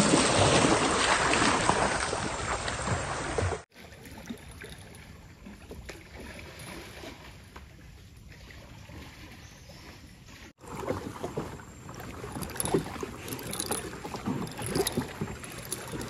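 Kayak paddling: paddle strokes dipping and splashing in the water. The first three and a half seconds are louder, with a rushing noise. The sound then drops off abruptly to faint water sounds, and picks up again about ten seconds in with irregular paddle splashes and drips.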